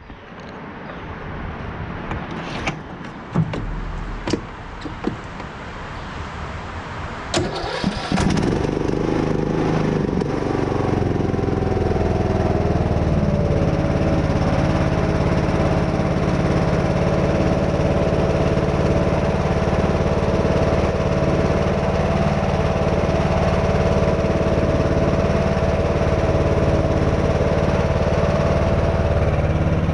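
Craftsman T110 riding mower engine being started: a few clicks and knocks while it turns over, then it catches about eight seconds in and runs steadily with a steady high whine over the engine note.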